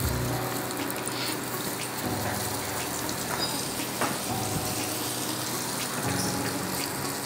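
Cornstarch-coated chicken skins deep-frying in hot oil in a wok, a steady bubbling sizzle just after going into the oil.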